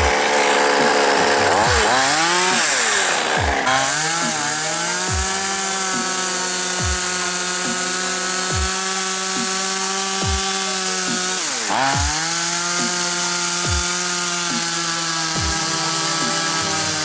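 DDE CS2512 25 cc two-stroke chainsaw cutting wood at high revs. Its engine pitch sags under load twice, about two seconds in and again near twelve seconds, and recovers each time.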